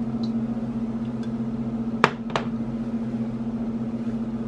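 Steady low electrical hum from a kitchen appliance, with two quick clicks close together about two seconds in.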